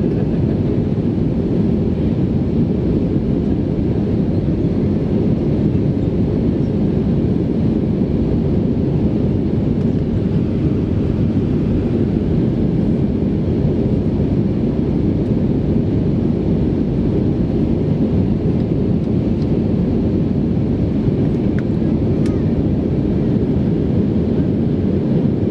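Steady low rumble of an Airbus A319's CFM56 engines and rushing airflow, heard from inside the passenger cabin while the jet is in flight.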